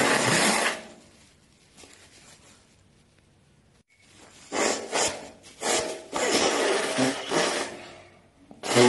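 A person blowing their nose into a tissue, several times: a long blow at the start, a run of short blows and a longer blow in the middle, and another blow with a pitched, buzzing tone starting near the end.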